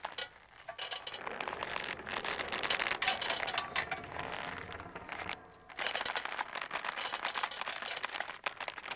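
Gore sound effect: a dense run of irregular wet crackles and clicks, breaking off briefly near the start and again about five and a half seconds in.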